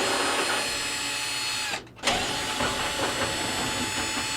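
Power drill-driver backing out the Phillips screws that hold a dryer's front panel: two runs of the motor, each about two seconds, with a short pause between.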